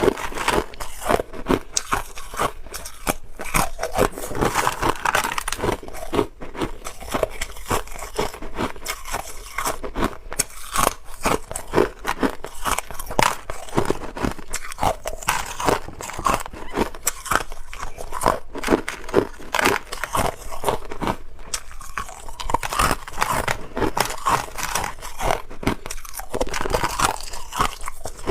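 Hard clear ice being bitten and chewed, a continuous run of sharp cracking crunches close to the microphone.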